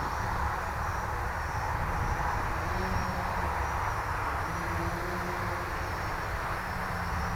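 Armattan CNC 355 quadcopter buzzing in flight, its motors and propellers giving a steady whirring hum with slight shifts in pitch over a low rumble.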